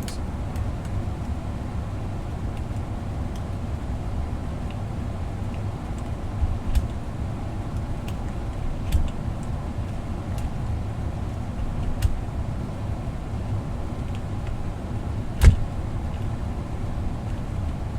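Steady low rumble of a furnace running, with a few scattered sharp clicks over it, the loudest one late on.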